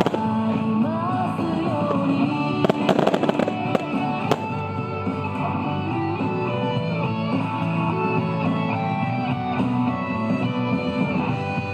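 Music plays throughout, with a quick cluster of firework bangs and crackles about three seconds in and one more sharp bang a second later.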